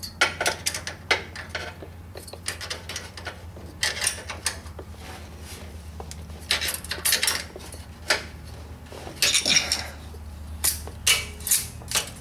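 Wrench and screwdriver clinking and scraping on the valve adjusting screw and locknut of a 1973 VW Super Beetle's air-cooled flat-four during a valve-clearance adjustment. The metal-on-metal clicks come in irregular clusters over a steady low hum.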